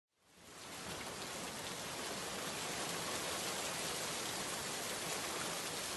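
Steady rain sound effect, an even hiss of falling rain that fades in over the first half-second.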